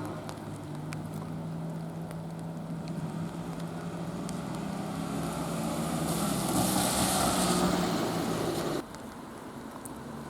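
Road traffic at a level crossing: a steady low vehicle engine hum with tyre noise that builds to a peak about six to eight seconds in, then drops off suddenly near the end.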